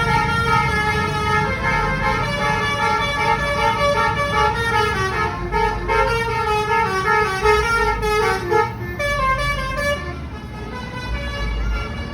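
Indonesian bus 'telolet' musical horn playing a quick stepping tune of several notes over a low engine rumble. The tune stops about nine seconds in, leaving the engine.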